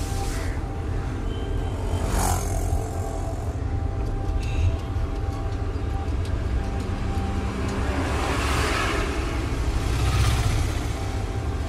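Steady road and engine rumble heard from inside a moving taxi, with swells of tyre noise as traffic passes, about two seconds in and again twice near the end.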